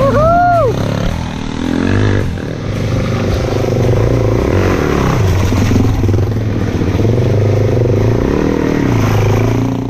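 Suzuki DR-Z400 single-cylinder four-stroke trail bike engines revving and easing off repeatedly as they labour through slippery mud. A short, high call rises and falls in the first second.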